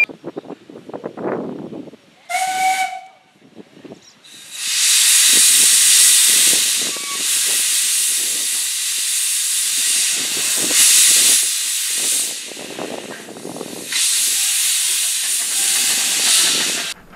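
A narrow-gauge steam locomotive gives a short whistle toot about two seconds in. From about four seconds in comes a loud, continuous hiss of steam venting from the engine, swelling and easing a few times before cutting off suddenly near the end.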